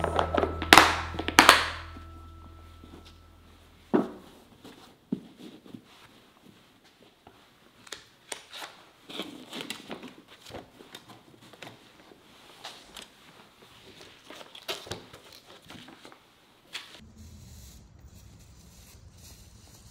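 Plastic food container lid pressed shut with two sharp clicks, followed by a knock, then a long stretch of cloth rustling and light crinkling as the box is wrapped in a fabric bundle.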